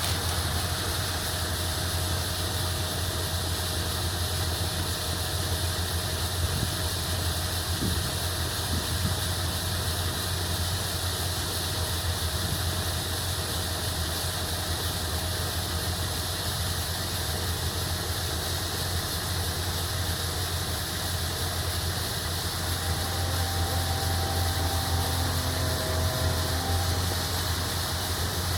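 Farm machinery engine running steadily, a constant low drone, with a faint whine joining in briefly near the end.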